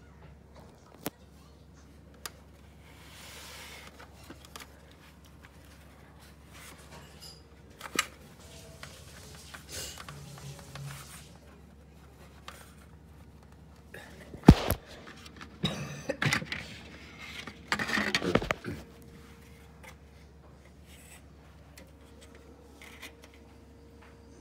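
Handling noise from a plastic exhaust fan housing and grille being picked up and turned over by hand: scattered light clicks, one sharp knock about fourteen seconds in, then a few seconds of plastic clattering and rubbing.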